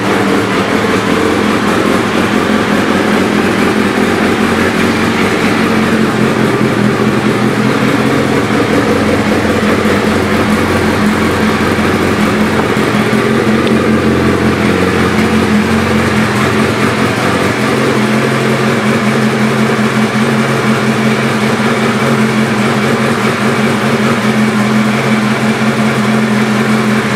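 2009 Suzuki Hayabusa's 1340 cc inline-four engine idling through a Two Brothers Racing aftermarket exhaust: a steady engine note that wavers slightly partway through.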